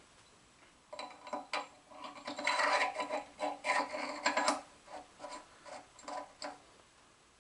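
Stroke-length shaft of an Atlas 7B shaper being fed by hand through the oiled bronze bushes in the main casting: metal scraping and clicking, starting about a second in, densest in the middle and ending near the end.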